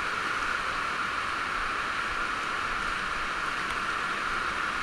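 Underground stream rushing through a cave passage: a steady, unbroken hiss of flowing water.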